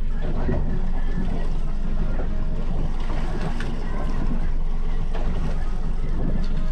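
Steady wind and choppy sea water around a small open fishing boat, a constant low rumble.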